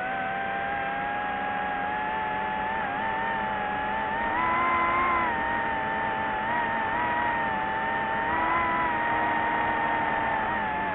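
DJI FPV drone's motors and propellers whining in flight. The pitch and loudness rise briefly about halfway through and again a few seconds later as the throttle is pushed, then ease off near the end.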